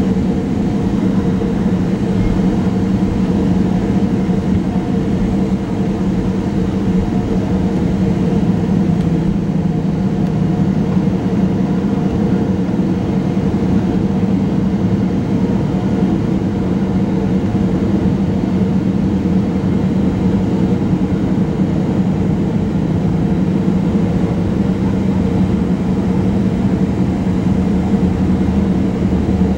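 Jet airliner cabin on the ground after door closure: idling engines and the cabin air system make a loud, steady drone with a low hum in it.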